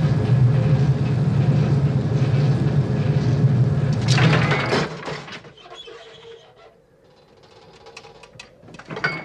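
Cable car drive machinery running with a loud low hum and rumble for about five seconds, then dying away, followed by scattered mechanical clicks and creaks.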